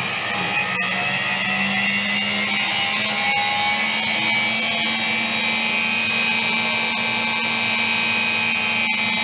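Ardo washing machine's motor running with a whine that slowly rises in pitch as the drum speeds up.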